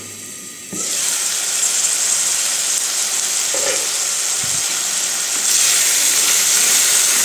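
Chopped vegetables sizzling in hot oil in a terracotta kadhai, a steady frying hiss. It starts abruptly about a second in and gets louder near the end as a wooden spatula stirs the pan.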